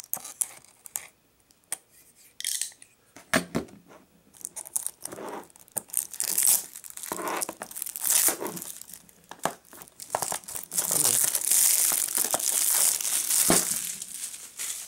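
Plastic shrink-wrap on a Blu-ray case being slit with a utility knife and peeled off, tearing and crinkling in short scratchy bursts. About ten seconds in, a long run of loud crinkling as the film is pulled away and crumpled.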